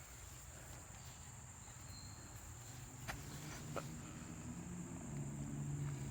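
Crickets chirring steadily in one high, even tone. There are two faint clicks about three seconds in, and a low hum comes in during the second half.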